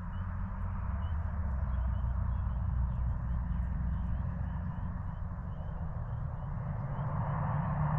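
Chorus of spring peepers: many short, high, rising peeps overlapping in quick succession, over a steady low rumble.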